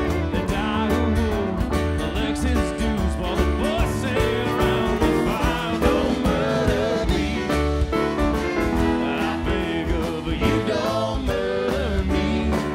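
Live country-rock band playing: strummed acoustic guitar, dobro slide lines, drum kit and bass in a steady groove.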